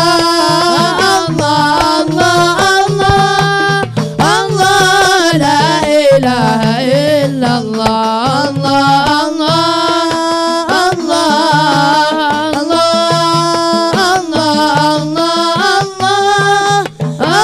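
A male voice singing an Arabic devotional qasidah in a winding, ornamented melody, accompanied by marawis hand drums (frame drums and a darbuka) beating a steady repeating rhythm.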